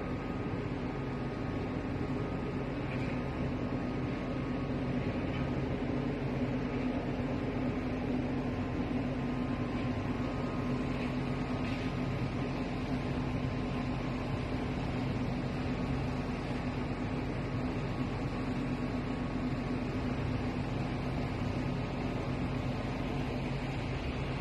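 Boat engine running steadily while underway: a low, even hum with a faint higher whine, over a steady hiss.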